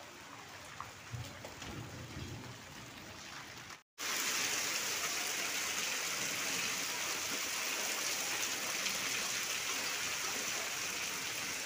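Heavy rain mixed with hail pelting a wet concrete courtyard, a steady hiss. It is fainter for the first few seconds, then after a brief cut near four seconds it is much louder.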